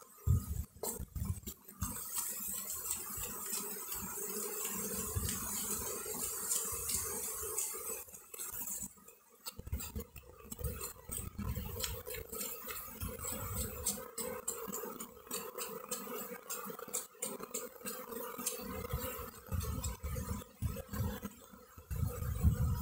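Honeybees buzzing around an open hive, a steady low hum, while a knife cuts and scrapes through wax honeycomb on a frame with sticky, wet sounds and small clicks. Low thumps and rumbles come and go throughout.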